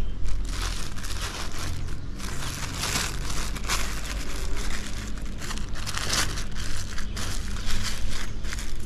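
Thin plastic bag crinkling and rustling in irregular handfuls as hands wrap and squeeze it around a soil ball packed onto a mango branch for air layering.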